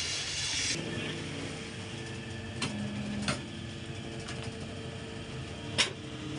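A die being clamped onto a power press: a few sharp metal clinks and knocks, over the steady hum of a running machine. A hiss cuts off about a second in.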